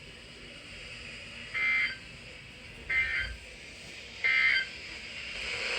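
Emergency Alert System end-of-message tones: three short bursts of screechy two-tone digital data about 1.3 seconds apart, over faint broadcast hiss. They mark the end of the tornado warning message.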